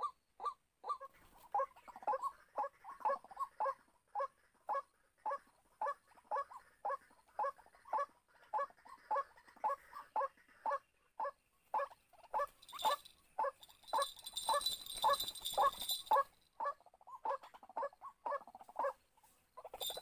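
White-breasted waterhen calling: a long series of repeated 'kru-ak' notes, about two or three a second. A high buzzing hiss joins for a few seconds about two-thirds of the way through.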